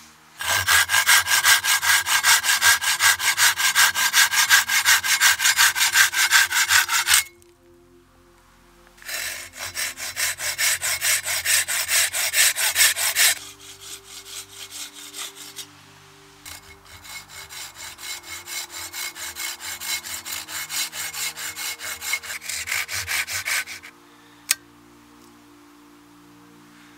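Hand saw cutting into a green, bark-covered stick: rhythmic back-and-forth strokes, about four a second, in three bouts with short pauses between. A single sharp click near the end.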